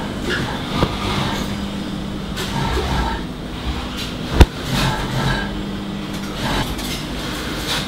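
Garment workshop room noise: a steady machine hum under cotton T-shirts being shaken out and handled on a table, with one sharp knock about four and a half seconds in.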